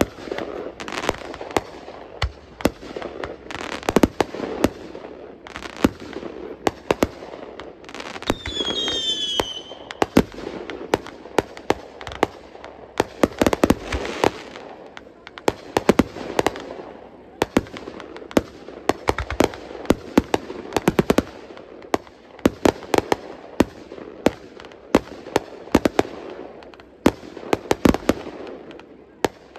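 Fireworks going off: a steady run of sharp bangs and pops from bursting aerial shells, dozens of them, with crackling in between. A shrill, wavering whistle rises briefly about eight seconds in.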